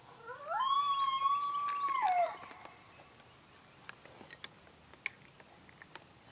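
A single drawn-out coyote howl: it rises, holds one steady pitch for about a second and a half, then drops away and ends about two seconds in. A few faint clicks follow.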